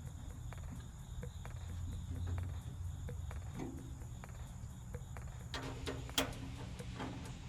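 Light handling clicks and taps from assembling a sheet-metal tool chest, with a sharp click about six seconds in. A steady high-pitched drone runs underneath and stops a little after five seconds.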